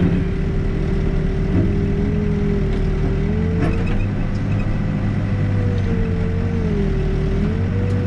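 Backhoe's diesel engine running steadily under load, with a whine that wavers up and down in pitch as the hydraulics are worked.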